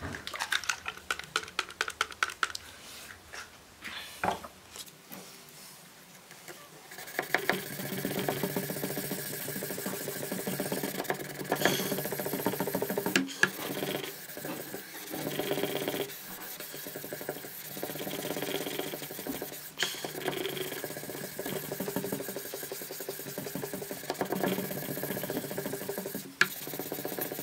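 Hand sanding of a heat-treated steel knife blade with 1500-grit wet-or-dry sandpaper on a wooden block: sandpaper rubbing the steel in steady back-and-forth strokes, starting about seven seconds in. Before that, a few seconds of clicks and handling.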